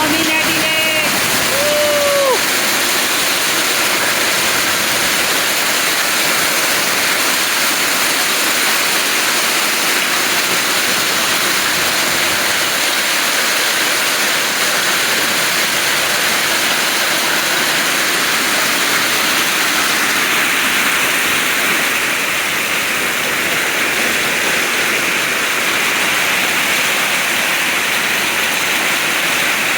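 Hailstorm: hail and heavy rain pelting down in a steady, dense hiss.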